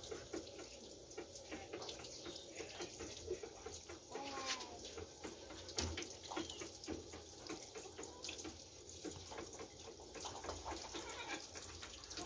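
Water running from an outdoor tap into a metal sink as armadillo innards are rinsed under it, with splashing and handling sounds. A brief bird call about four seconds in.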